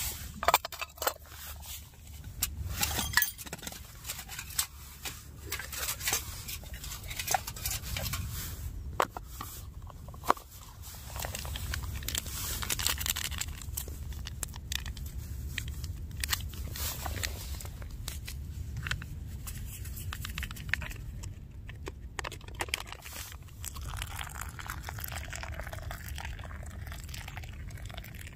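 Scattered clicks and clinks of things being handled, thickest in the first ten seconds, over a low steady rumble.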